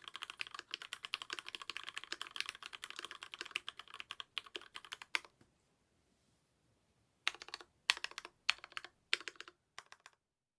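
Mechanical keyboard typing on an Archon DX2 with an aluminium plate, silicone dampening and lubed Cherry MX Black linear switches on 65 g springs: fast, continuous keystrokes for about five seconds, a pause of about two seconds, then five short clusters of keystrokes about half a second apart before it stops.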